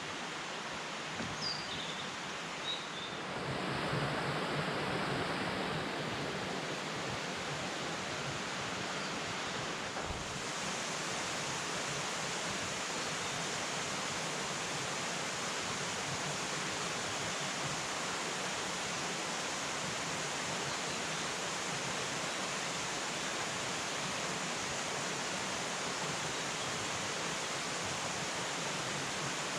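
Mountain river rushing steadily through a rocky gorge: a constant, even sound of running water.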